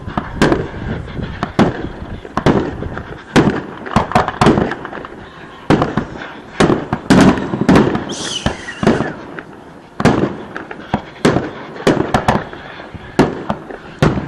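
Fireworks display: aerial shells bursting one after another, a rapid irregular series of sharp bangs with crackle between them, and a falling hiss about eight seconds in.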